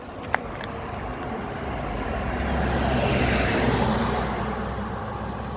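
A car driving past on the road, its tyre and engine noise swelling to a peak midway and fading away. A single sharp click just after the start.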